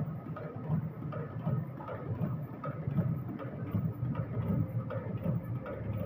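Workshop machinery running with a steady mechanical clatter of many small knocks.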